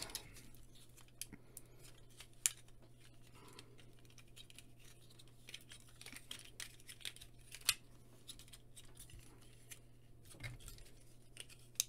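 Faint, scattered clicks and clacks of hard plastic parts as the joints of a 1980s G1 Dinobot Slag toy are moved and folded by hand, with two slightly louder clicks. A faint steady low hum runs underneath.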